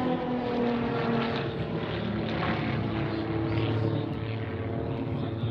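Propeller airplane flying past, its engine note dropping in pitch as it goes by during the first second or so, then running on steadily.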